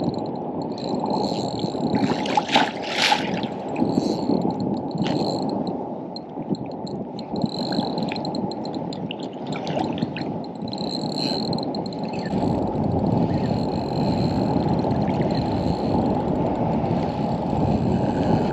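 Sea water sloshing and splashing around a wading angler, with a few sharper splashes about two to three seconds in.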